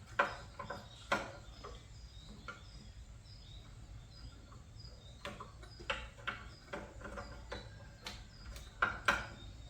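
Scattered sharp clicks and clinks of hand tools and small metal parts being handled during a carburetor swap, about seven of them, the loudest near the start and near the end. Faint short high chirps repeat in the background.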